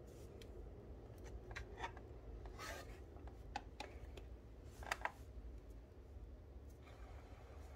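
Faint handling noises on a plastic robot vacuum: rubbing and scattered light clicks as its top cover is lifted and a phone is shifted on it, with two sharper clicks about five seconds in, over a low steady hum.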